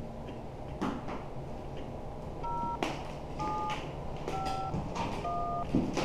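Four short touch-tone beeps, each two pitches at once, about a second apart, keyed on a handheld amateur radio's keypad, with a few sharp clicks from the keys and handset, typical of sending tone commands to a repeater controller.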